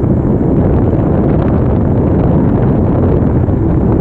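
Loud, steady wind buffeting on the microphone of a GoPro Hero 5 Session action camera, from riding a fat-tire e-bike at speed. It is a dense, low, unbroken rumble with no engine tone or separate knocks.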